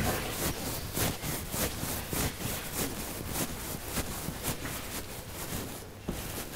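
Chalk writing on a blackboard: a run of short, scratchy strokes and taps, about two or three a second, unevenly spaced.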